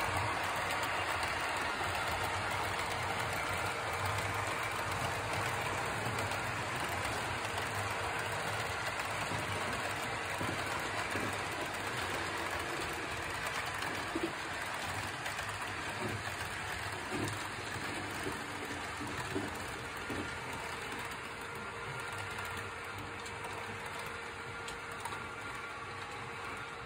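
HO-scale model train, two Vectron electric locomotive models hauling a container train, running on a layout: a steady running hiss and hum with a scatter of small clicks in the middle, growing quieter toward the end as it moves off.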